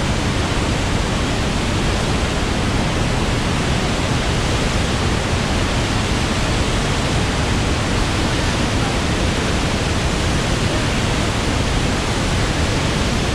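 Orange River in flood pouring over Augrabies Falls: a loud, steady roar of falling and churning water that never lets up.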